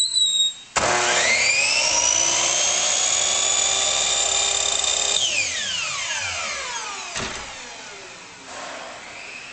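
Power miter saw cutting the angle on a simulated divided lite grill bar. The motor starts suddenly about a second in, whines up to full speed, runs steadily for about four seconds, then winds down with a falling whine after the trigger is released. A brief high-pitched squeak comes just before it starts.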